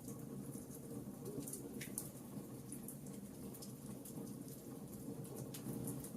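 Wood fire burning in a fireplace: a steady low rumble of flames with scattered small crackles and pops throughout, the sharpest about two seconds in.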